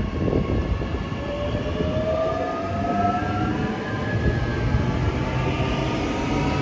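Queensland Rail electric suburban multiple-unit train pulling away, its traction motors giving a whine of several tones that rise in pitch as it gathers speed, over a steady rumble of wheels on the rails.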